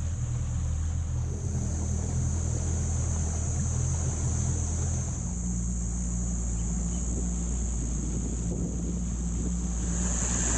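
Boat's outboard motor running steadily under way, its engine note shifting slightly about halfway through.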